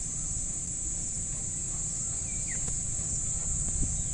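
Insects chirring in one steady, high-pitched drone, with a low rumble underneath.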